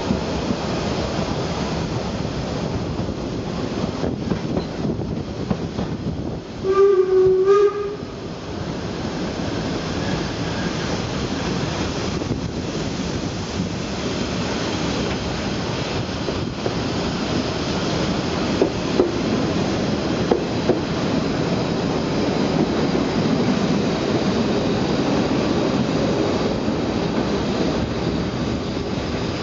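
Narrow-gauge steam train running, heard from a carriage window: steady rolling and rail noise, with the steam locomotive's whistle sounding two quick blasts about seven seconds in.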